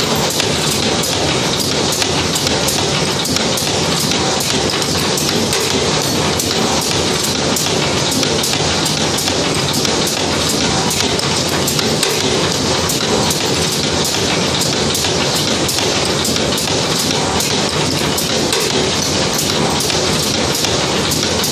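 CNC wire bending machine running: a steady, loud mechanical hiss and clatter with regular sharp clicks, about two or three a second.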